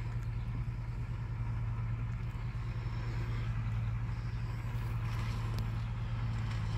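Turbocharged diesel engine of a loaded Isuzu Rocky 195 six-wheel truck running steadily under load as it pulls a sugarcane load across a field, a low drone that grows slightly louder as the truck approaches.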